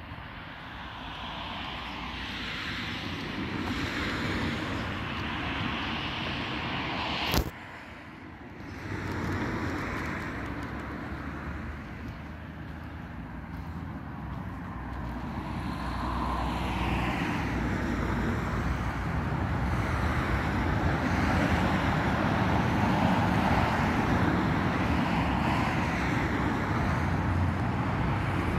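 Road traffic: cars pass one after another, each a rush of tyre and engine noise that swells and fades over a few seconds, growing louder toward the end. There is one sharp click about seven seconds in.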